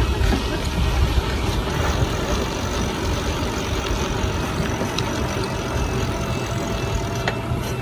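Wind buffeting the microphone and tyre noise from a bicycle riding along a paved street: a steady, uneven rumble.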